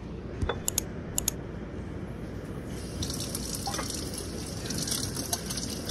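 Kitchen tap running into a sink, with a few sharp clinks in the first second or so. The water gets brighter and a little louder about three seconds in.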